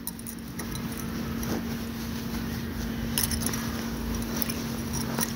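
Light metallic clinks and scrapes as cooked tomato pieces are spooned into a steel mixer-grinder jar, over a steady low hum.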